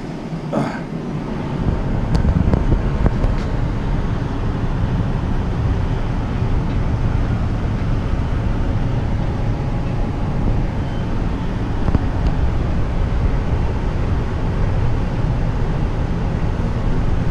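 Wind buffeting the camera's microphone on an open high-rise balcony: a steady low rumble that comes up about two seconds in.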